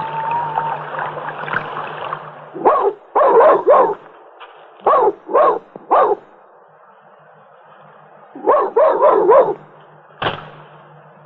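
A dog barking in three bouts of three to five barks each. A single sharp knock comes near the end.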